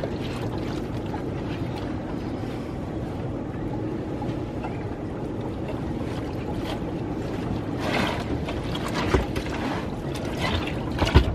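Laundry being hand-washed in a plastic tub of water: water sloshing and splashing as wet clothes are kneaded and lifted, over a steady background hiss, with louder splashes about eight seconds in and again near the end.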